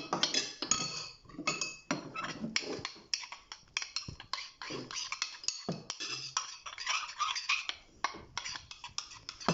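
A utensil stirring slime in a bowl, knocking and clinking irregularly against the bowl's sides, a few strokes ringing briefly.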